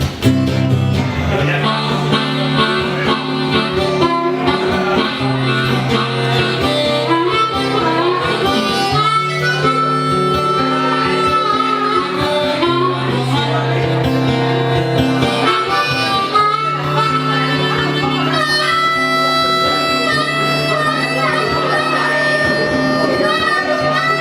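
Live band playing an instrumental break: a harmonica solo of held, bending notes over steady guitar and bass accompaniment.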